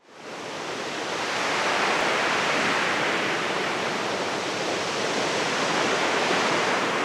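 Steady rushing background noise, fading in over the first second and a half and then holding level, with no wave rhythm or breaks.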